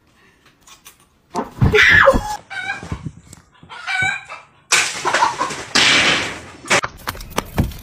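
A chicken squawking and clucking in a run of loud, wavering calls, followed by about two seconds of loud rushing noise and a few sharp knocks near the end.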